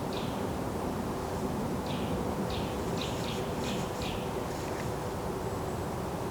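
Forest ambience: a steady low rush of background noise with a faint steady hum, and scattered short high chirps, most of them bunched together in the middle.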